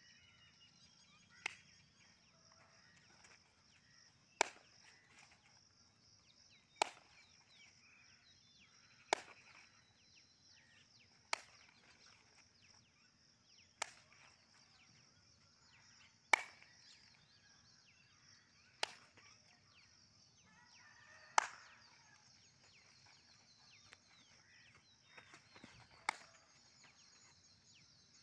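Single sharp hand claps at an even pace, about one every two and a half seconds, marking time for a group stretching routine. A steady high insect drone runs underneath.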